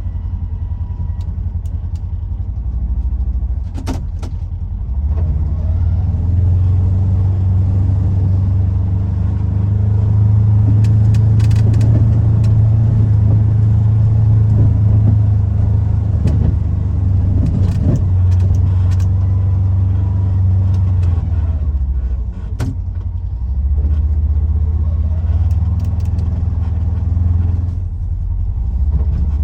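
Polaris Ranger XP 1000 side-by-side's engine running under way, its low hum getting louder about 5 seconds in and again near the end, with a couple of sharp knocks.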